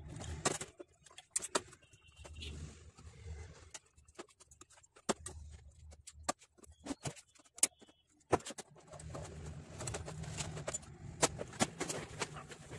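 Scattered clicks and knocks of plastic wire connectors being pulled off a Canon LBP2900B laser printer's power supply board, and of the board being handled and set down on a bench.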